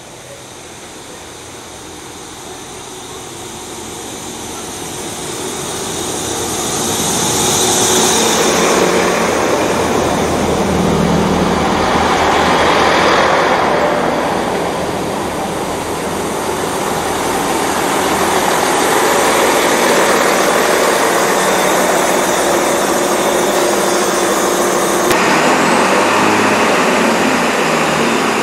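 Networker Turbo diesel multiple unit running in along the platform, growing louder over the first eight seconds as it nears, then passing slowly with a steady diesel engine drone as it slows into the station.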